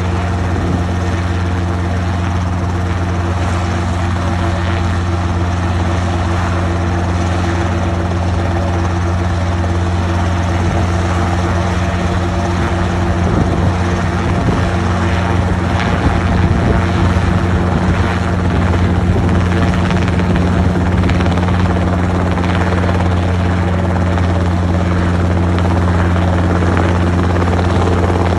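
Helicopter running with a steady, unbroken low drone.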